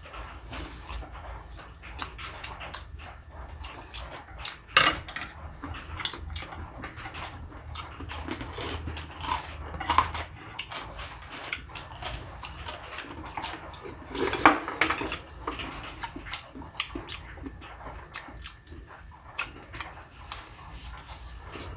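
Tableware clinking at a meal: chopsticks and spoons clicking against bowls and dishes, with two louder knocks, about five seconds in and again about fourteen seconds in.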